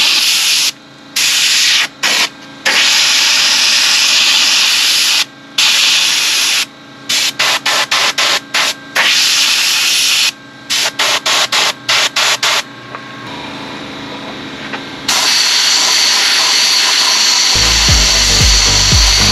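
Air-powered abrasive blast gun spraying grit onto an engine block: a loud hiss of air and media. It cuts off and starts again as the trigger is released and pulled, with a run of short quick bursts in the middle, then runs steadily. Background dance music comes in near the end.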